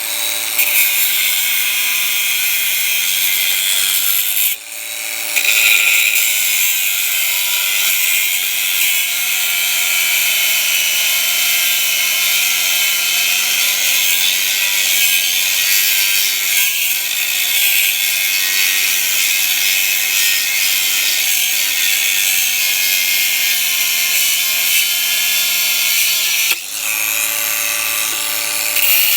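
WORX 20 V cordless angle grinder with a 100 mm metal cutting disc cutting through a steel angle bar: a steady motor whine under a loud hiss of the disc grinding steel. The sound dips briefly about four and a half seconds in and again near the end.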